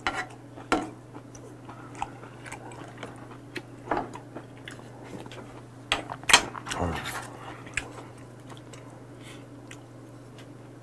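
Close-miked eating sounds: soup sipped from a spoon and soft chewing, with scattered wet clicks and smacks and one sharper click about six seconds in. A steady low hum runs underneath.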